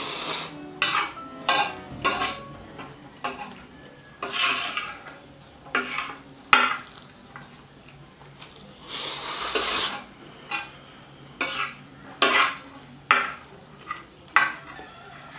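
Metal spoon and fork scraping and clinking on a ceramic plate, gathering up the last of the food. It is a string of sharp clinks with a few longer scrapes, the longest about nine seconds in.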